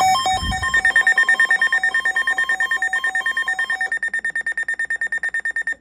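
Electronic emergency alert tone: a high, rapid beeping, about nine beeps a second, with a lower two-note pattern under it that fades out about four seconds in. It cuts off suddenly near the end.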